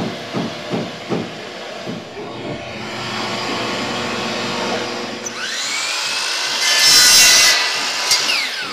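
DeWalt sliding miter saw spinning up with a rising whine, cutting through white PVC pipe with the loudest burst about seven seconds in, then winding down with a falling whine near the end. Before it, a steady rushing noise from a shop vacuum.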